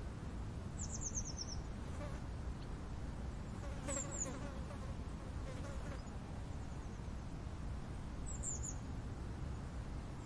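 Outdoor nature ambience: a steady low hum with a small bird's short, very high trills of a few quick falling notes, heard three times, about a second in, about four seconds in, and near the end.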